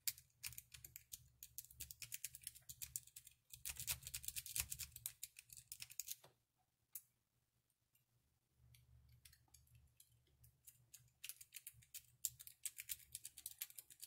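A 15-thousandths worm rake scrubbing fast in and out over the pin tumblers of a cheap laminated steel padlock: quick runs of light metallic clicking and scraping. The clicking stops about six seconds in and starts again about two and a half seconds later.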